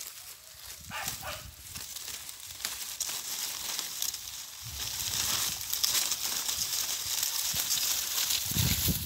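Dry cornstalks rustling and crackling, growing louder and denser about three seconds in.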